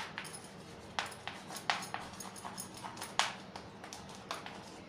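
Chalk writing on a blackboard: irregular sharp taps and short scratches as the letters are formed.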